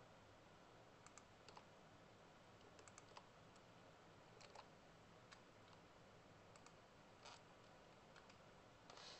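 Near silence with faint, scattered clicks at a computer, about fifteen short ones at irregular spacing, over low room hiss.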